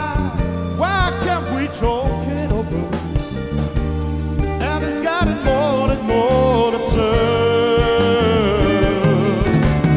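Live band playing a song: steady bass and drum strokes under a wavering, vibrato lead melody, with one long held note from about six to nine seconds in.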